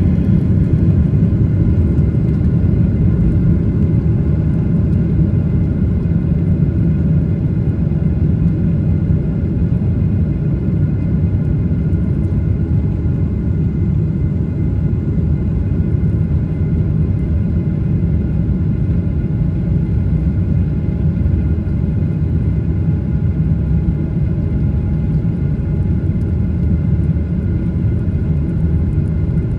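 Jet airliner moving along the ground, heard from inside the cabin: a steady low rumble with the engines' drone and several steady whining tones over it.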